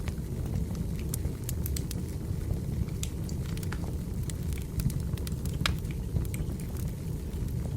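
Firewood burning in a fireplace: a steady low rush of flames with irregular sharp crackles and pops from the logs.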